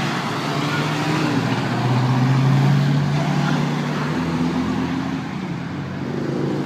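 A classic car's engine passing by, growing louder to a peak about two and a half seconds in, then fading away.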